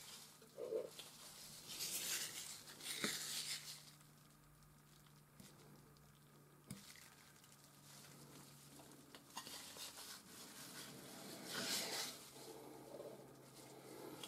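Palette knife scraping and dabbing oil paint on canvas: soft scraping strokes about two seconds in and again near the end, with a few light taps between.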